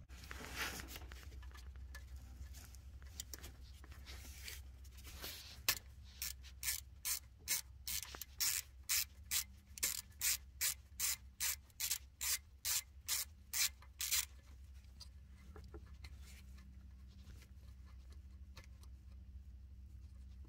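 Small ratchet wrench clicking in an even run of about twenty strokes, two or three a second, as it works the loose terminal nut on a Duramax fuel injector whose stud threads are stripped. Scraping handling noise before and after the clicking, over a steady low hum.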